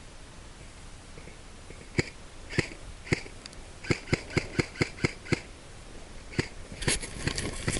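Airsoft guns firing single shots: about a dozen sharp cracks at irregular intervals, starting about two seconds in, then a quicker cluster of shots near the end.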